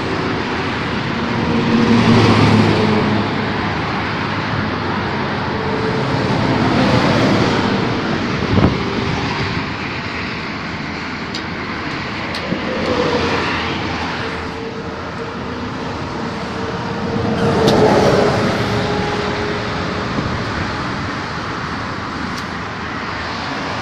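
Highway traffic passing close by at speed, swelling as each vehicle goes past, about four times, with a single sharp knock about a third of the way in.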